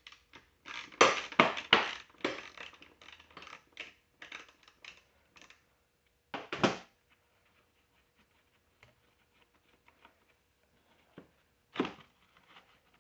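Hand tools working bolts on a lawnmower's metal housing: a quick flurry of clicks and clanks in the first couple of seconds, lighter clicking after it, a louder metal clank about six and a half seconds in and another near the end.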